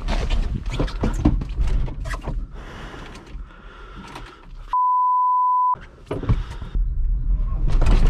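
Clicks and knocks from a car door and cabin being handled, then a steady single-pitch censor bleep about a second long with all other sound cut out, then more knocks and a 1991 VW Caddy's 1.6 turbodiesel engine running low near the end.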